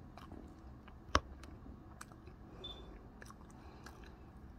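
Quiet room tone with scattered faint clicks and one sharp click about a second in.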